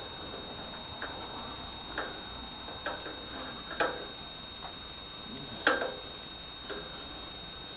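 Light metal taps, about one a second and of uneven strength, as the bandsaw vise jaw is knocked little by little into square alignment.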